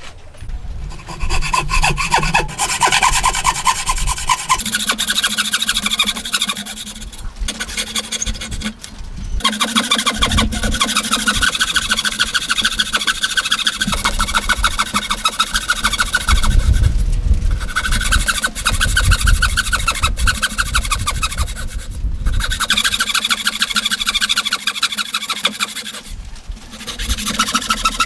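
Hand frame saw cutting down into a square wooden post: a steady rasp of back-and-forth saw strokes through the wood, broken by a few short pauses.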